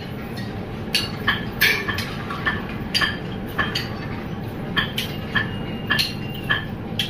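Cable-car terminal machinery running, a steady low rumble with sharp metallic clicks and clinks about twice a second.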